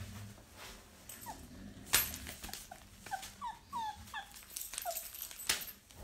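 Puppy whimpering in a run of short, high squeaks, with a sharp knock about two seconds in and another near the end.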